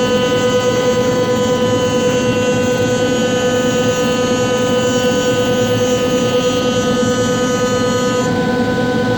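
5-axis CNC machine cutting: a steady high spindle whine over a rough cutting noise, its tone pattern shifting slightly near the end.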